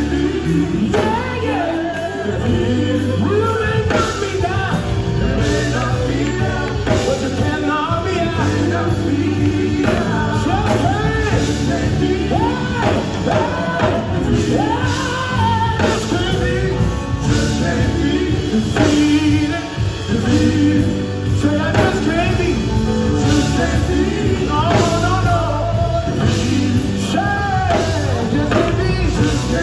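Live gospel music: male singing over electric bass and keyboard with a steady beat.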